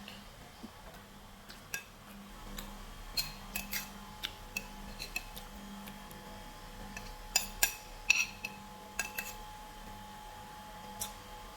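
Eating utensils clinking and tapping against bowls and dishes: scattered sharp clicks and clinks, some ringing briefly, with a quick cluster of louder ones about seven to eight seconds in. A faint steady hum runs underneath.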